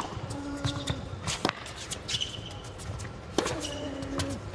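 Tennis ball struck back and forth in a rally, four racket hits about one to two seconds apart, with rubber-soled shoes squeaking on the hard court between shots.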